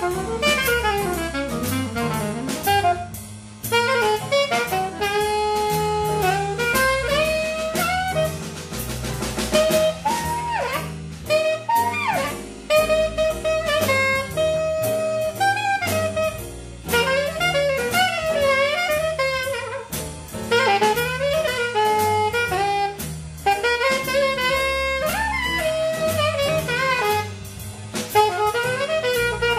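Saxophone improvising a jazz solo over a rhythm section: upright double bass walking in steady steps and a drum kit keeping time on the cymbals.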